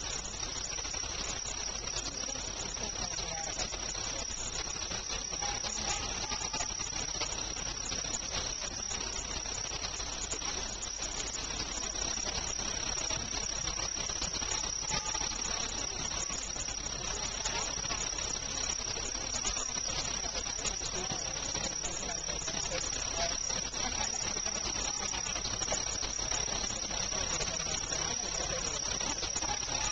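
Insects trilling steadily in the background: one constant high-pitched trill with a fast, regular pulsing chirp just above it.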